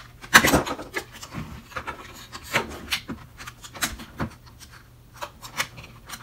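Small plastic and metal parts of a cordless drill being handled and fitted by hand during reassembly: irregular clicks and short scraping rubs, the loudest about half a second in.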